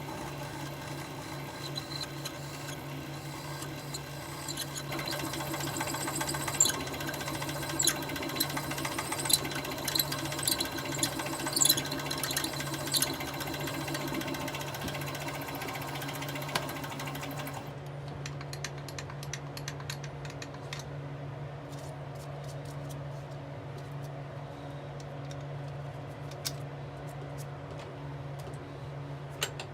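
Electric machine-tool motor running with a steady hum, with a run of sharp metallic clicks and ticks in its first half. About two-thirds of the way through, the higher hissing part of the sound cuts off suddenly and the steady hum carries on.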